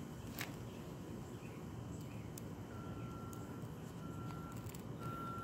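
A vehicle's reversing beeper sounds faintly, starting about halfway through: a steady single-pitched beep repeating roughly once a second. About half a second in there is one faint click of the cutters working on the lithium-ion battery.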